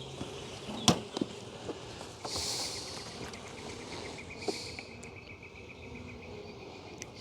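Insects in an apiary: a steady, high, finely pulsing trill that sets in about two seconds in, with a sharp click about a second in and two short hisses.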